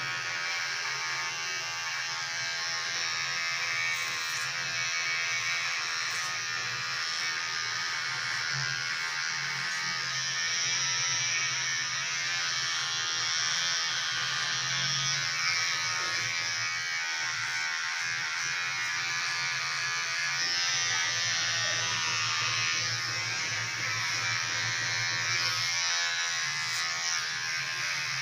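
Electric hair clipper running with a steady buzz as it is moved over the scalp, shaving the hair short.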